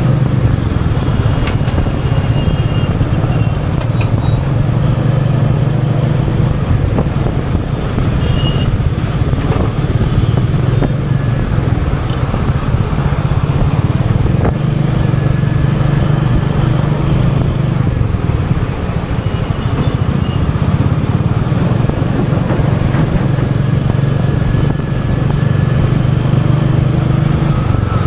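Royal Enfield Meteor 350's single-cylinder engine running steadily at an easy riding pace through city traffic, with only small rises and dips in level.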